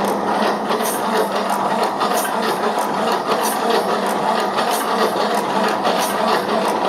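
Old 4Ч8 four-cylinder diesel being cranked over with a steady mechanical hum and an uneven beat, not catching. The crew blame worn piston rings for the failed start.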